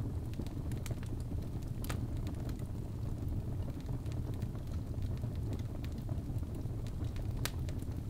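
Birch logs burning in a fireplace: a steady low rumble of flames with scattered sharp crackles, and two louder pops, one about two seconds in and one near the end.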